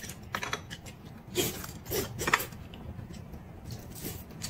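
Close-miked eating sounds: a person chewing and smacking on food taken from chopsticks, with a few louder wet bites and smacks between about a second and a half and two and a half seconds in.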